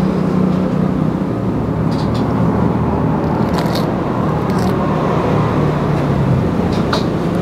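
Steady low engine hum that holds on without a break, with a few faint clicks over it.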